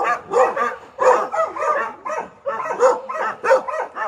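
Dogs barking in quick, steady succession, about three barks a second.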